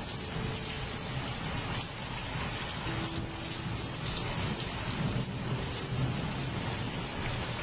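Steady heavy rain during a thunderstorm, with thunder rumbling low beneath it.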